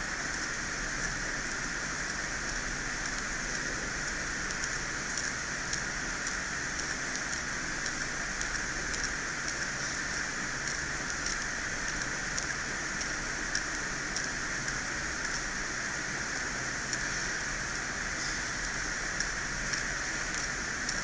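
Steady hiss with faint, scattered ticks of a knife blade scraping at the iPhone 6s Plus logic board, slowly removing the layer damaged by a wrongly fitted long screw.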